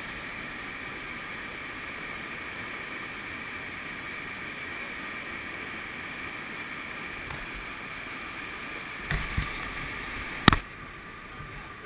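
Whitewater rushing steadily down a creek through a concrete chute, the flow running high at about 175 cfs. Near the end come two dull thumps and then one sharp knock, the loudest sound.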